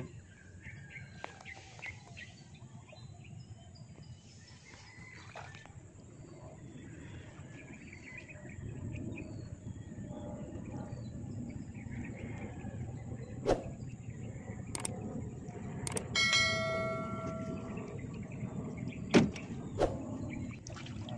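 A gill net being hauled by hand over the side of a small wooden boat: light water sloshing and a few sharp knocks against the boat, with faint bird chirps and a short bell-like ringing tone near the end.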